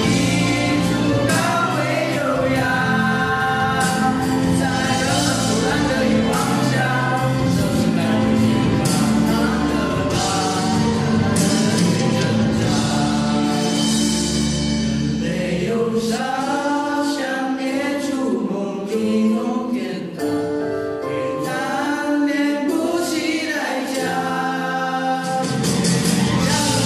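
A group of voices singing a gospel-style song in harmony. About sixteen seconds in, the low sustained notes drop away and leave the higher voices on their own, until the low notes come back near the end.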